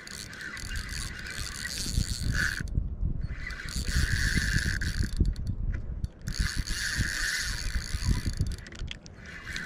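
Fishing reel whirring in spurts as line is reeled in against a hooked salmon; it stops briefly about three times. Low dull bumps run underneath.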